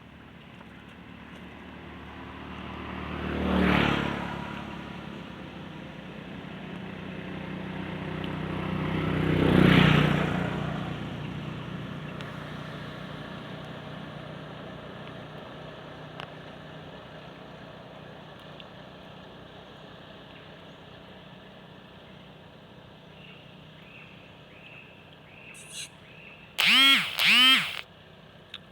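Two vehicles pass one after the other, about six seconds apart, each swelling and then fading away. Near the end come two loud, shrill calls in quick succession.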